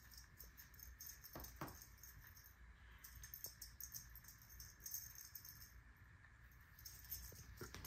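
Near silence: quiet room tone with a few faint light clicks and rattles.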